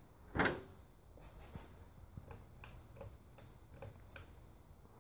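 A 1987 Gulf Coast Showboat ceiling fan switched on to low speed: one sharp click of the switch about half a second in, then faint light ticking, about three ticks a second, as the fan starts turning.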